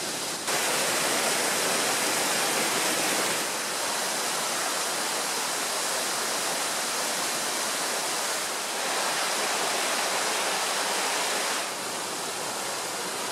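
Mountain stream rushing over rocks and a small waterfall: a steady hiss of water that steps louder or quieter three or four times.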